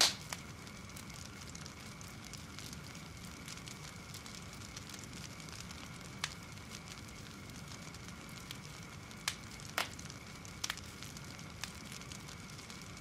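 Faint steady crackling hiss, with a few sharp clicks scattered through it.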